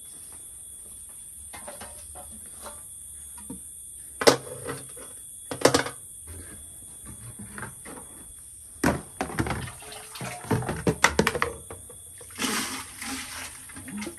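Water being scooped with a metal dipper and pot from large clay water jars and poured out, with sharp clanks of metal against the jars and a splashing pour near the end.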